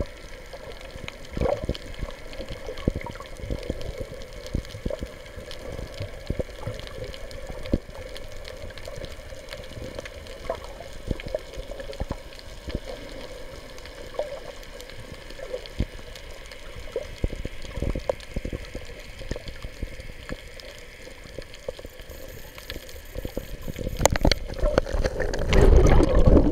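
Underwater sound picked up by a camera held just below the surface: a steady muffled water noise with many scattered sharp clicks. Near the end it grows much louder and rougher as the camera is handled and water sloshes against it.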